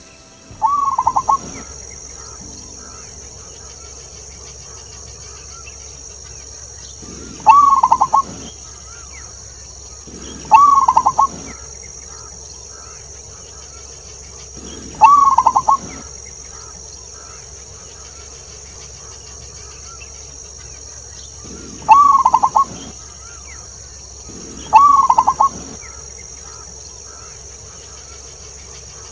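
Zebra dove (perkutut) cooing: six short, loud bursts of rapid pulsed coos, each about a second long and several seconds apart, over a steady high insect hiss.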